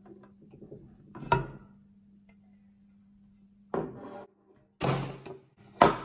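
Metal case of an Icom IC-706MkIIG transceiver being handled and its cover lifted off: a few separate knocks and clatters, the sharpest about a second in and at the very end, over a steady low hum.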